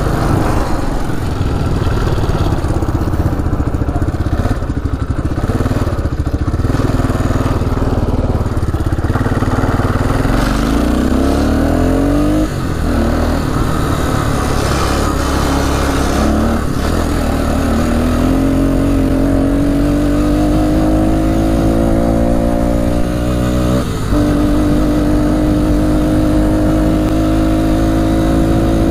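1998 Arctic Cat 300 2x4 ATV's single-cylinder four-stroke engine running at speed under way, now pulling well. Its pitch climbs as it gains speed, dips sharply about twelve seconds in and again near twenty-four seconds, then rises steadily once more.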